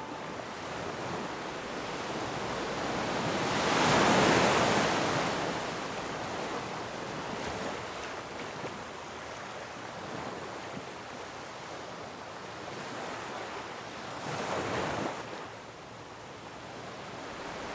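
Ocean surf: waves breaking and washing in, swelling loudest about four seconds in and briefly again near the end.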